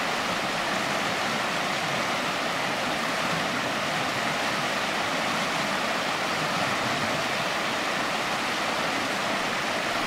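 The Werribee River running over rocks in shallow rapids: a steady rush of water.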